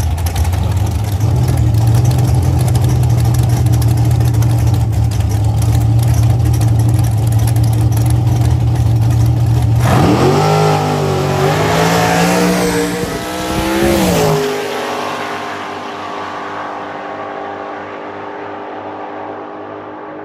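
Drag race cars' engines running loud and steady at the starting line, then launching about ten seconds in: the engine pitch climbs for about four seconds, dipping at the gear changes, cuts off suddenly as the drivers lift, and the sound fades away down the track.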